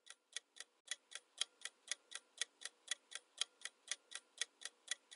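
Clock-ticking sound effect for a quiz countdown timer: a steady, even run of sharp ticks, about four a second.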